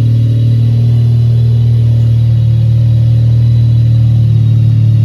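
The Wankelghini's Wankel rotary engine idling steadily, a constant low hum with no change in speed.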